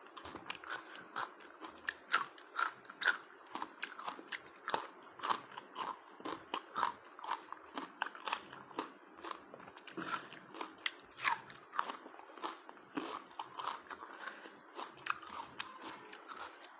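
A person chewing and crunching food, with short, uneven crunches about two or three times a second.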